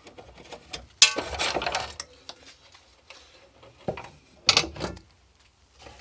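A thin aluminium shielding cover is lifted off an instrument chassis and set down on a wooden workbench. About a second in there is a metallic clatter with brief ringing, and a second knock comes later, with small handling clicks between.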